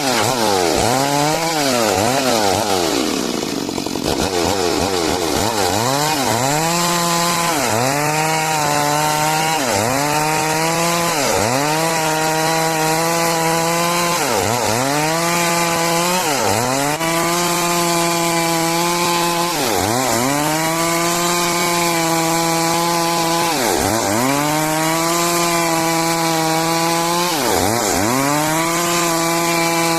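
Stihl MS 382 two-stroke chainsaw running at high revs while cutting timber into boards. The engine speed drops sharply and climbs back every few seconds.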